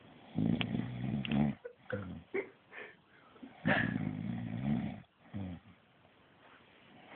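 A man snoring in his sleep: two long, low, rasping snores about three seconds apart and a short one after, with a few brief higher-pitched sounds between the first two.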